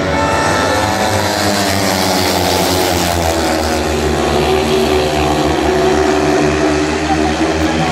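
Four speedway motorcycles racing, their 500 cc single-cylinder methanol engines revving hard, with several engine pitches rising and falling over one another as the riders throttle round the bend.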